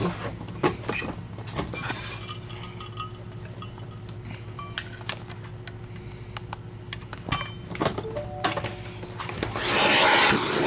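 Scattered light clicks and clinks of plastic vacuum parts and tools being handled on a workbench. About a second before the end, a loud, steady rushing hiss of air starts up as the dirt-filled cavity of the vacuum base is cleaned out.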